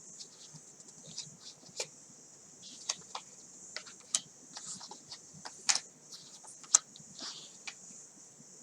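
Oracle cards being handled and looked through: card stock sliding with a soft hiss and irregular small clicks and taps, the sharpest about six and a half seconds in.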